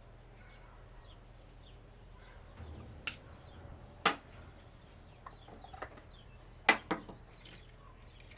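Four sharp clicks or knocks, the last two close together, over faint short chirps.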